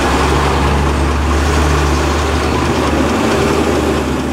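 Heavy lorry's diesel engine running steadily as it passes close by, with a car and tyre noise on the road.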